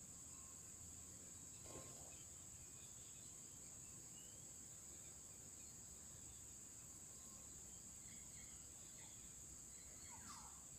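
Insects keeping up a steady high-pitched drone over otherwise near-silent forest ambience. There is a faint brief sound about two seconds in and another near the end.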